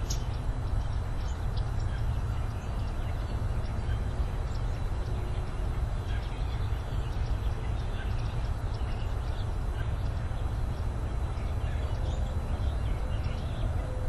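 Steady low outdoor rumble with faint, scattered bird calls from across the water.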